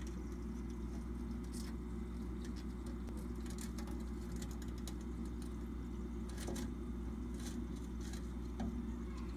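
Steady low hum of aquarium equipment, with scattered light clicks and ticks through it.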